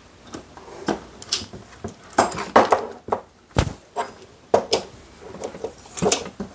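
Scattered clicks and clinks of aluminium robot-arm parts being handled and fitted together by hand, with a heavier knock about three and a half seconds in.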